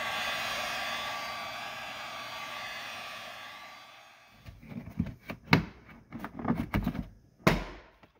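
Heat gun running with a steady whine over a fan rush, warming plastic trim panels so they are less likely to crack; it fades out about four seconds in. Then a run of clicks and knocks, with two sharper thuds.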